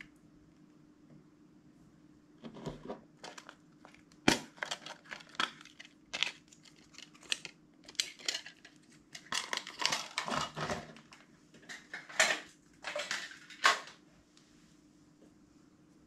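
A small clear plastic box and stretchy plastic toy figures being handled: irregular clicks, taps and crinkles of hard plastic, several sharp ones standing out. A faint steady hum lies underneath.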